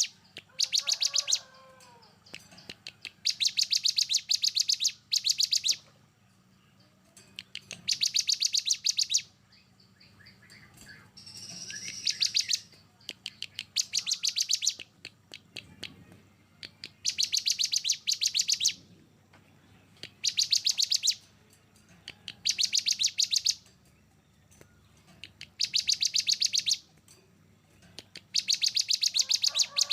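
Songbird singing 'tembakan': about a dozen bursts of very fast, evenly repeated sharp high notes, each a second or so long and coming every couple of seconds. A few softer, lower calls fall between them. This is the dense, rough rapid-fire song that masteran recordings use to tutor songbirds.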